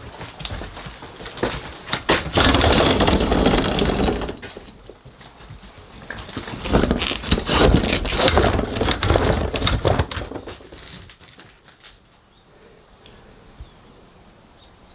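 Crunching, rustling and clattering of scattered debris inside an abandoned house, in two stretches of a couple of seconds each, then quieter near the end.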